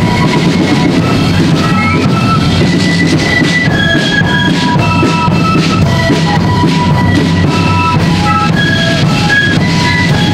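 Marching flute band playing a tune: flutes carry a high, quick-changing melody over steady snare and bass drum beats.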